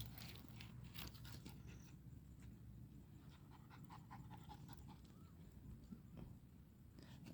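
German shepherd puppy panting faintly, with a few soft clicks.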